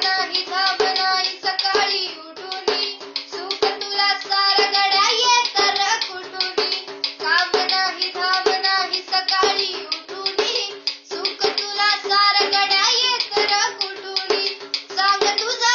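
A young girl singing a Marathi song while beating a small hand drum in a quick, steady rhythm.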